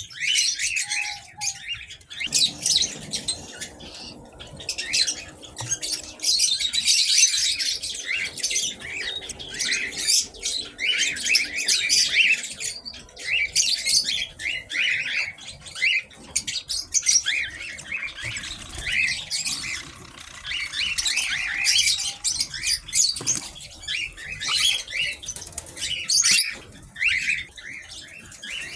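A flock of small aviary birds chirping and twittering together in a dense, continuous chatter of many short high calls.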